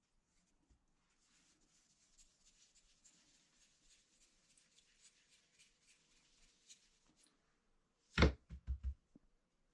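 Wooden rolling pin (belna) rolling out roti dough on a board: a faint, even scraping with light ticks for about six seconds. Then comes a sharp knock, followed by a few lighter knocks.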